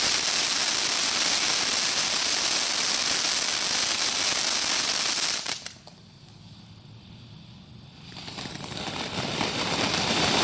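Ground firework fountain (Cutting Edge 'Bare Knuckle Fighting') spraying sparks with a loud, steady hiss. The hiss cuts off suddenly about five and a half seconds in, as one stage burns out. After a couple of quieter seconds the next stage builds back up to full spray near the end.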